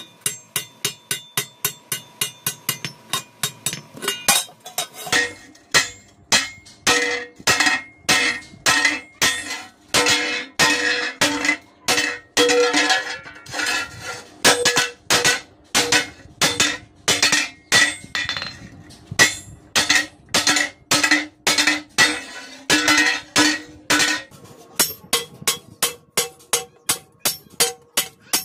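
Hand hammer striking a sheet-iron plate on a steel block anvil in a steady rhythm, about two to three blows a second, each blow ringing. The plate's rim is being bent over the anvil's edge.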